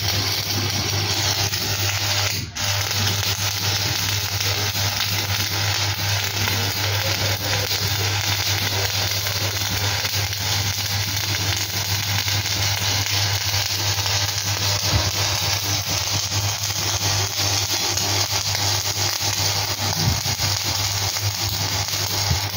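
Electric arc welding: the arc crackles and sizzles steadily as a bead is laid on steel plate, with a brief break about two and a half seconds in, over a steady low hum.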